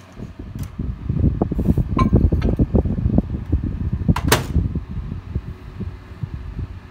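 A desk fan's airflow buffeting the microphone as a dense low rumble. About four seconds in, a microwave oven door shuts with a sharp click.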